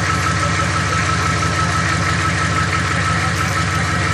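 GM 6.2-litre V8 diesel of a 1991 Chevy G20 van idling steadily just after a cold start, with an even, fast diesel knock and a thin steady whine over it.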